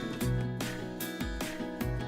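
Background music: an upbeat track with a steady beat of low drum hits about twice a second and strummed guitar.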